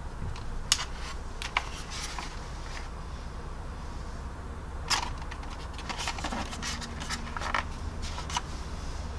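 Handling noise of a plastic scale model being turned over in the hands: scattered small clicks and brief rustles over a low steady hum.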